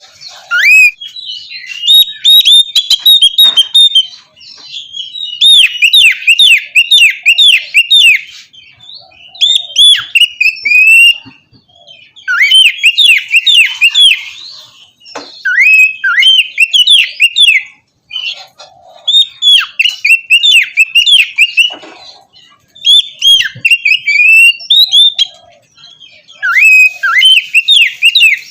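Oriental magpie-robin singing in fast phrases of rapidly repeated, sweeping whistled notes, each phrase lasting a second or three with short pauses between.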